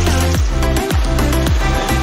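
Electronic dance music with a steady, thumping kick-drum beat, about two beats a second, over a sustained bass line.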